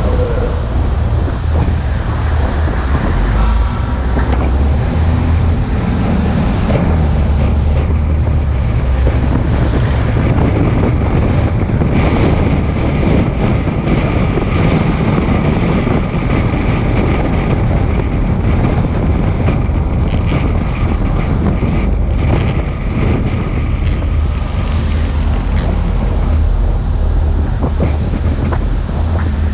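Wind buffeting the microphone over a steady low rumble, as from a moving vehicle.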